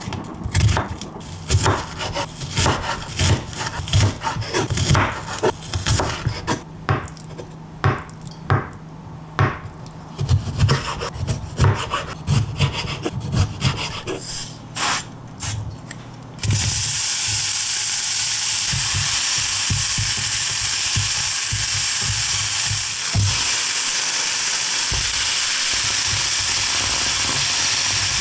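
Kitchen knife cutting onion on a wooden cutting board: quick, irregular blade strikes on the wood, a few a second. About sixteen seconds in this gives way to a steady sizzle of diced onion, tofu and cherry tomatoes frying in oil in a pan.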